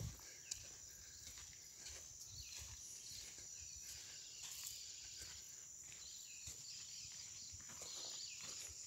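Faint footsteps and rustling on dry ground and fallen-leaf litter, over a steady high-pitched insect drone.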